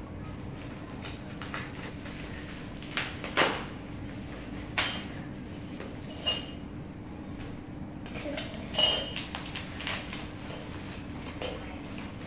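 Scissors snipping and plastic bubble wrap crinkling as a wrapped diya holder is cut open and unwrapped, a sharp snap or clink every second or two, two of them ringing briefly like small glass or metal pieces knocking, over a steady low hum.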